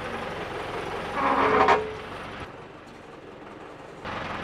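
Old Clark forklift engine running steadily, with a brief loud squeal about a second in. Near the halfway point the engine sound drops away to quieter outdoor ambience.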